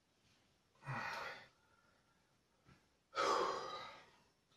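A man breathing audibly near the microphone: two breaths about two seconds apart, the second longer, like a sigh.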